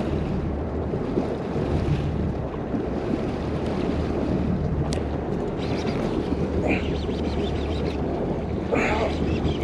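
Wind buffeting the microphone over open sea, with water washing against a boat's hull and a steady low hum from the boat's engine running.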